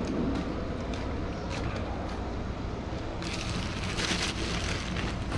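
A clear plastic bag crinkles for a second or so around three seconds in as a potted blueberry bush is lifted out of a cardboard shipping box, over a low, steady rumble.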